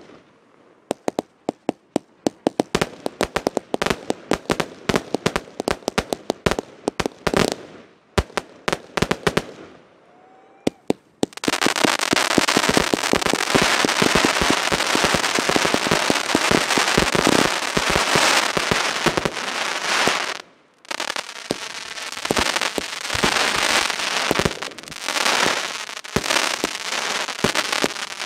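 Fireworks display: a rapid string of sharp bangs for the first ten seconds or so, then from about eleven seconds in a dense, continuous crackling with bangs through it, broken off briefly about two-thirds of the way through.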